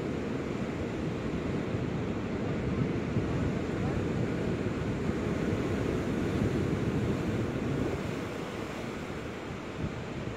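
Wind noise on the microphone over the steady wash of ocean surf, a low rumbling hiss that eases slightly near the end.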